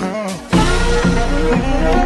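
Background music with pitched instrumental lines; a louder, fuller section with heavy bass comes in about half a second in.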